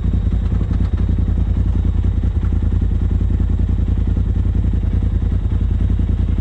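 Polaris RZR side-by-side's engine idling steadily while the machine sits stopped, heard from the driver's seat.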